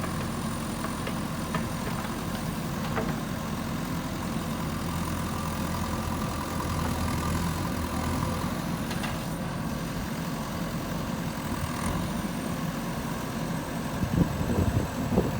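Diesel engine of a JCB 3DX backhoe loader running steadily at low revs, with a few short knocks near the end.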